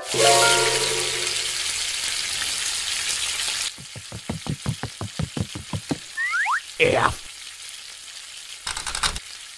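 Food sizzling in a frying pan for nearly four seconds, then a quick run of clicks, about six a second. A few short squeaky glides in pitch follow, and a brief burst of hiss comes near the end.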